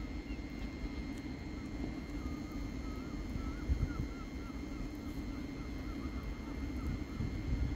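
A train approaches slowly across station pointwork at a distance: a low steady rumble with a thin steady whine above it. A repeated wavering chirp sounds through the middle.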